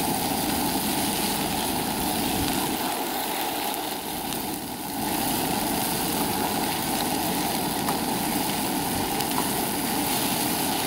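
Camp stove burner running steadily under a frying pan as chorizo, lentils and onions fry, with a few light clicks of a spoon stirring.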